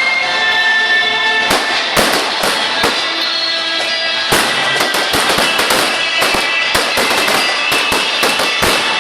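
Fireworks display: scattered bangs at first, then a dense, rapid barrage of bangs and crackles from about halfway through.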